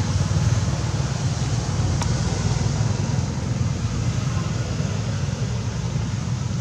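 Steady outdoor background noise: a low rumble with an even hiss over it and no animal calls, with one faint tick about two seconds in.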